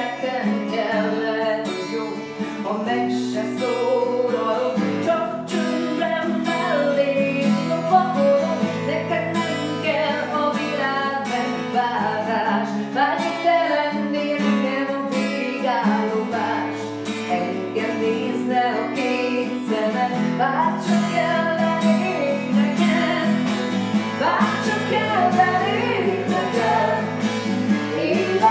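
Steel-string acoustic guitar strumming chords over a shifting bass line, with a woman singing a slow song.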